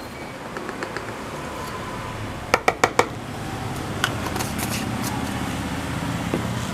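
Small handling noises of kitchen ingredients: a quick run of four sharp clicks about two and a half seconds in, then lighter ticks and crinkling as the baking powder jar is put down and the next packet is picked up.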